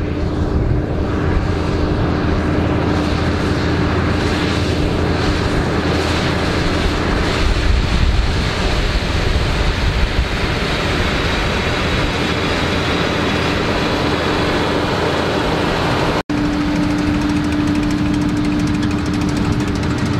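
Fendt Vario 724 tractor engine running steadily under load as it pulls a front-mounted rotary power harrow and potato planter through soil, with a steady hum over the rumble. About sixteen seconds in the sound cuts out for a moment and a Massey Ferguson 7480 pulling a Grimme potato planter carries on with the same steady engine noise.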